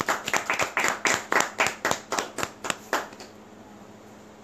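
Hand clapping from a small audience: distinct, separate claps, about four or five a second, that stop about three seconds in.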